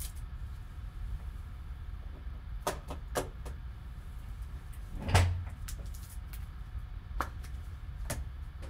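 Hard plastic trading-card holders clacking as they are handled and set down on a stack of cased cards: a handful of sharp clicks, with one heavier knock about five seconds in, over a low steady hum.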